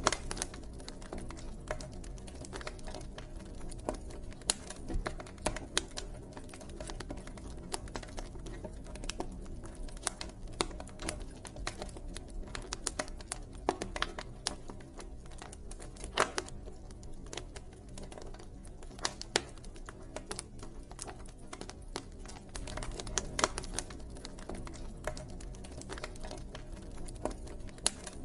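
Campfire burning: wood crackling with irregular sharp pops and snaps, some louder than others, over a low steady rumble of the flames.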